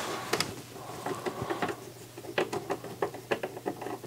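Screwdriver turning a screw out of the NAD C540 CD player's sheet-metal chassis: a run of small, irregular clicks and scratches.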